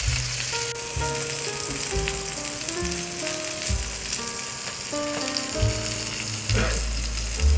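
T-bone and New York strip steaks sizzling as they fry on a griddle, a steady hiss. Background music with a stepping melody and a bass line plays over it.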